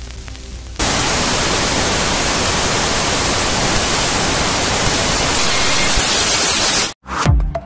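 Loud, steady television static hiss of white noise. It starts abruptly about a second in and cuts off near the end, where electronic dance music with a heavy beat begins.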